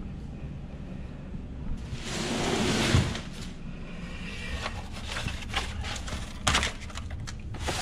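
Cardboard shipping box and its corrugated packing being handled: a scraping slide of cardboard about two seconds in, then scattered rustles and knocks, with a sharper knock near the end.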